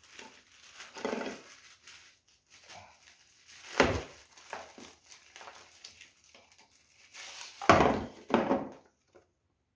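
Packaging and accessories of a hammer drill kit being handled and unpacked: intermittent rustling and crinkling with a few sharp knocks, one about four seconds in and the loudest near the end.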